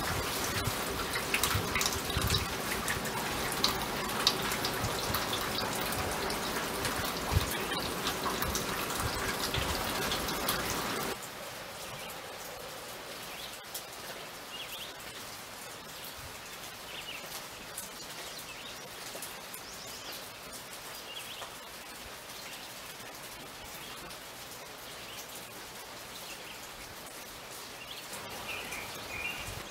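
Steady rain falling, with close drips and splashes. After about eleven seconds it gives way abruptly to a quieter outdoor background with a few faint bird chirps.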